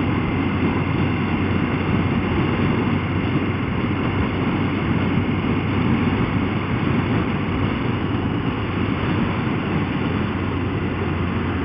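Motorcycle riding at road speed as picked up by a helmet-mounted camera: steady wind and road rush with the engine's low hum underneath.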